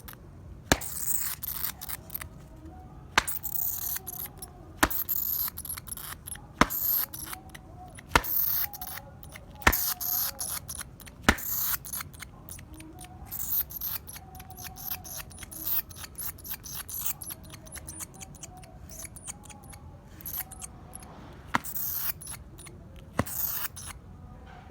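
A live bat squeaking, high-pitched chirps in rapid irregular bursts mixed with sharp clicks.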